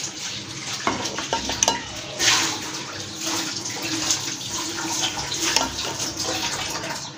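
Thick vanilla custard poured from a metal ladle and spread in a glass baking dish: wet slopping, with irregular clinks and scrapes of the ladle against the glass.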